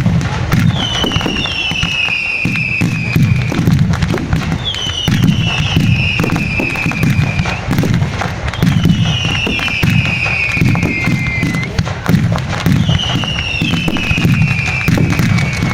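Fireworks display: a dense, continuous barrage of low booming bursts and sharp crackling. A high whistle that falls slowly in pitch, lasting about two seconds, sounds over it roughly every four seconds.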